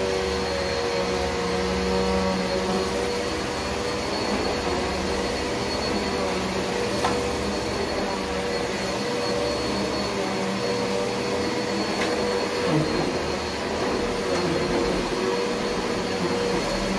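Bissell PowerGlide upright vacuum cleaner running steadily on carpet: an even motor drone with a steady whine, wavering slightly in loudness.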